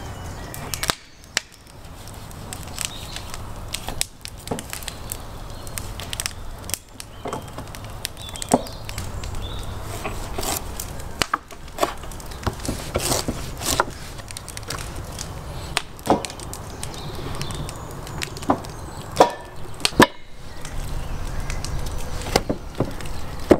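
Knife cutting raw bone-in ribs into pieces on a wooden cutting board: irregular sharp knocks and chops of the blade against the wood, over a low steady rumble.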